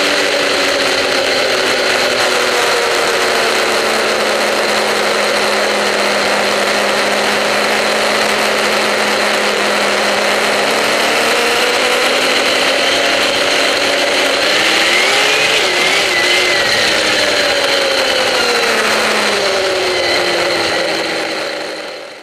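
Snowmobile engine running under way: the revs ease down, hold steady for a while, climb again about halfway through, waver, and fall away, before the sound fades out right at the end.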